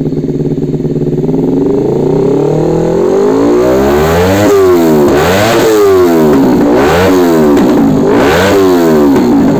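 Honda CBR250RR SP's parallel-twin engine revved through an R9 H2 Series full-system stainless aftermarket exhaust. It climbs from idle, is blipped up to about four rev peaks with the revs falling between them, and settles back toward idle near the end.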